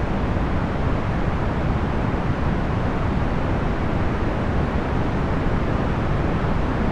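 Steady box fan noise, procedurally generated rather than recorded: an even rush of air that never changes, heavy in the low end and thin in the highs.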